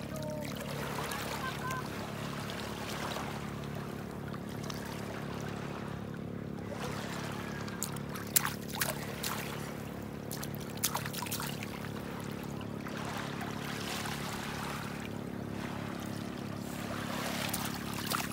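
Shallow seawater lapping and splashing around a small child wading over pebbles, with a few sharp splashes in the middle as her hands slap the water. A steady low hum runs underneath.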